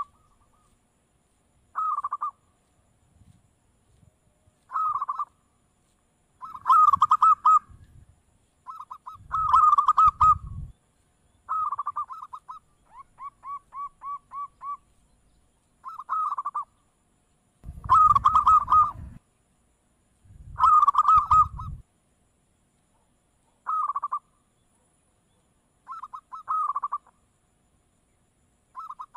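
Zebra dove (perkutut) cooing: short trilled coo phrases repeat every two to three seconds, with a run of about ten quick, evenly spaced notes near the middle. The loudest phrases come with a low rumble.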